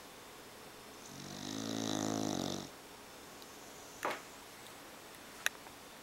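English bulldog snoring in its sleep: one long snore starting about a second in and lasting under two seconds, followed by two short clicks later on.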